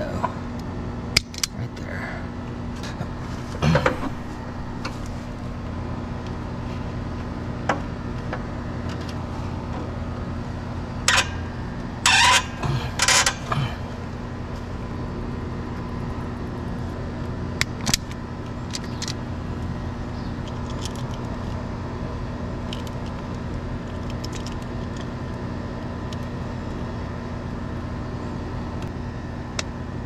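Scattered clicks and metallic clinks of hand tools and stiff 8-gauge stranded wire being worked inside a metal breaker panel, the loudest a quick cluster about halfway through. Under them runs a steady mechanical hum.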